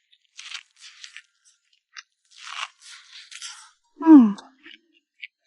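Biting and chewing into boiled corn on the cob: a run of crunching bites. About four seconds in comes a short, louder vocal sound that falls in pitch.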